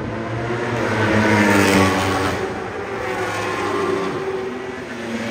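Superstock 1000 cc racing motorcycles passing at speed one after another, loudest about two seconds in with a second pass near four seconds. The engine pitch falls as each bike goes by.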